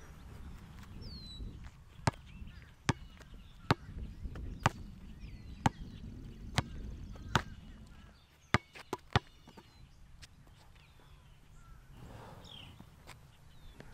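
A basketball bounced on an asphalt court: seven slow, even bounces about a second apart, then three quicker ones.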